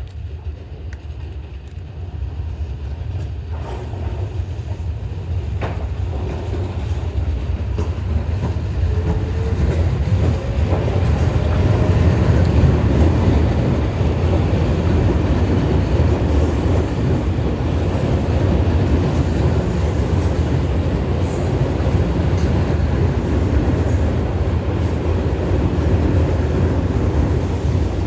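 Tobu 9000 series electric train (set 9108F) running on the rails, a low rumble of wheels and motors that grows louder over the first ten seconds or so and then holds steady.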